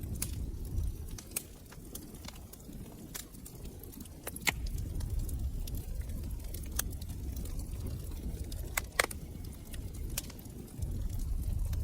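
Wood fire burning in a fireplace: a low steady rumble of flames with scattered sharp crackles and pops, the loudest pops about four and a half and nine seconds in.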